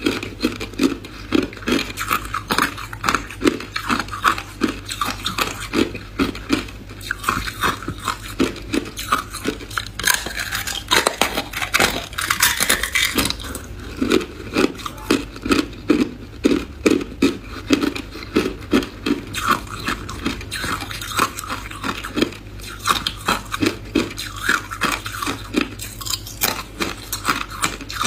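Clear hard ice being bitten off the edge of a thin ice slab and chewed: a run of crisp crunches, a few a second, with a sharper crack about eleven seconds in.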